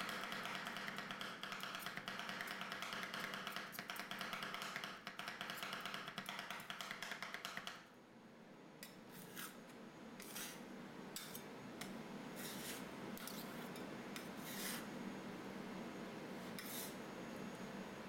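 Two metal spatulas rapidly chopping and scraping on an ice cream roll cold plate, working bitter gourd into the ice cream base, a dense fast clatter for about eight seconds. After that only a few separate short scrapes of the spatula blades.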